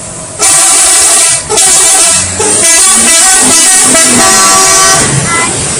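Bus 'telolet' musical horn playing a tune in three loud blasts, the notes changing pitch from one to the next. The last blast is the longest, about two and a half seconds.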